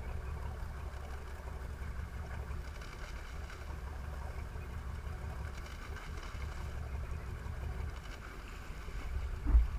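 Sportfishing boat's engine running, a steady low rumble mixed with water wash and wind on the microphone, with one brief thump near the end.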